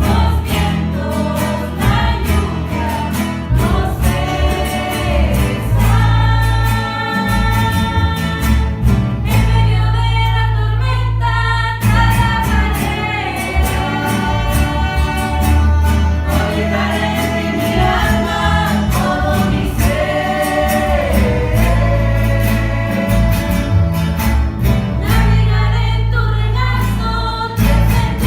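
Christian worship song with a group of voices singing held notes over a steady bass line and a regular beat.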